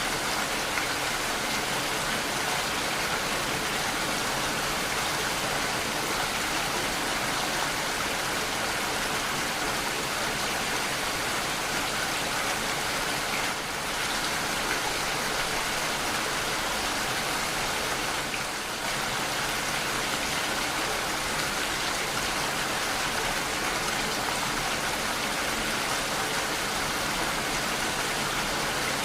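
Steady, dense rainfall: an even hiss of rain with no distinct drops, dipping briefly in level twice.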